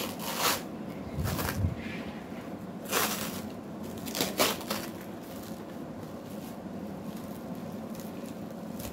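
Clear plastic wrapping on a packaged easel crinkling and rustling as it is handled, in several short bursts through the first half, then quieter.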